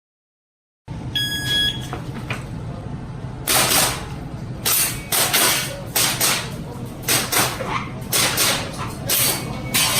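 An electronic shot-timer start beep about a second in. Then, from about three and a half seconds, an airsoft gas pistol fires in quick pairs of shots, about one pair a second, as double-taps on IPSC Action Air targets, over a steady low hum.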